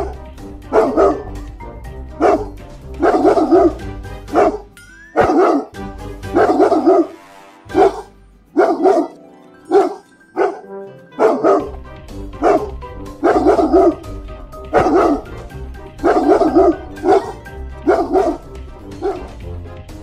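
Cane Corso barking repeatedly, about one bark a second, some barks coming in quick pairs, over background music.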